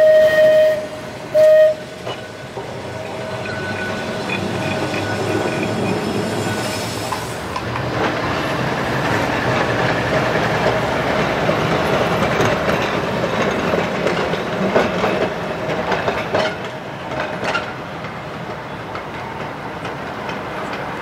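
A tram sounds its horn twice, a toot of about a second and then a short one, and then runs along the rails with a steady rumble and scattered clicks from the wheels over the track.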